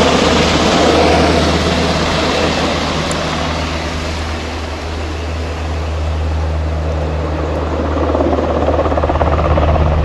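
Firefighting helicopter flying low over the trees: a steady low rotor-and-engine drone under a loud rush of air that eases a little midway and builds again near the end.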